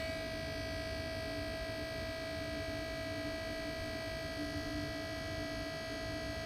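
Lennox commercial rooftop unit running in heating mode: a steady hum with a constant high motor whine over a low rumble, its motor running again on a newly fitted capacitor.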